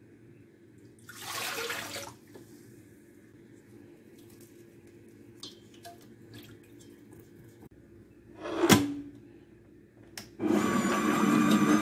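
Water pouring steadily from a plastic measuring jug into a stainless steel stand-mixer bowl, starting about ten seconds in. Before it, a brief rustling pour near the start, small clicks as yeast is crumbled in, and one loud knock against the bowl.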